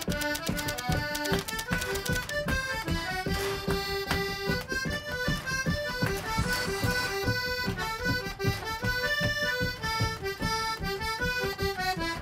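Instrumental background music: a bright melody over a steady beat.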